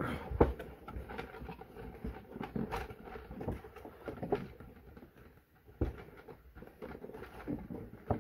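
Cardboard toy box with a clear plastic window being handled and opened: irregular rustling, crinkling and light taps of the packaging.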